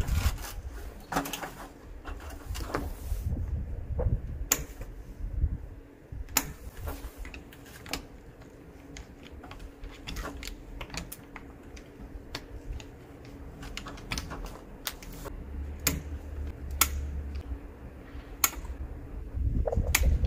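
Irregular small clicks and taps of hand work on an outdoor wall light fitting, with parts and fixings being handled and pushed into place.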